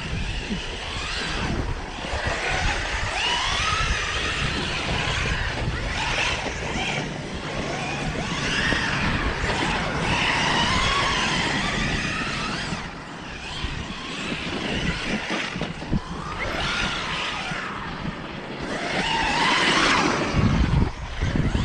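Losi Super Baja Rey RC truck's brushless electric motor whining, the pitch rising and falling again and again as the throttle is worked while it drives over snow, over a low rumble of wind on the microphone. Near the end it gets louder and rougher.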